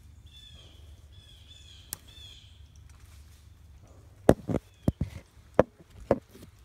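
A bird calls a short run of high, downward-sliding notes. About four seconds in come several loud, sharp knocks and crunches as the handheld camera is jostled and moved over dry leaf litter.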